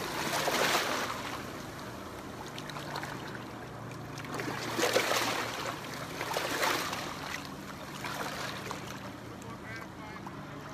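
Small waves washing in over the rocky shoreline and around a wading angler's legs, swelling up a few times, over the steady low hum of a boat motor out on the water.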